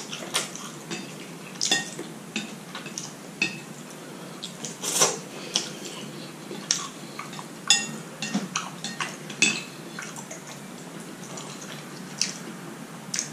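Wooden chopsticks clicking and scraping against a ceramic plate at irregular intervals as the last few noodles are picked up, with slurping and chewing in between.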